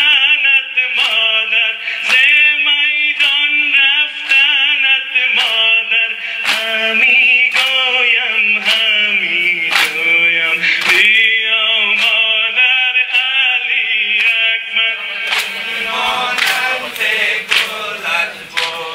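A male reciter chanting a Persian noha, a Shia mourning lament, in long melodic lines. Under it comes rhythmic sina zani: hands slapping chests in a steady beat, roughly once a second.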